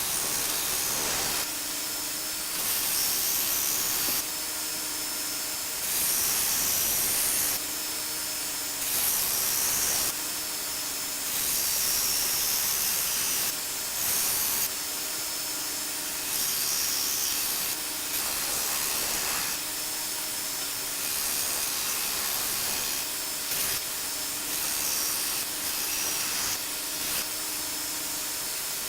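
A 1x42 belt sander running steadily while the steel cleaver blade is ground on its belt in about a dozen repeated passes, each a louder hiss of one to two seconds as the bevel is pressed to the belt.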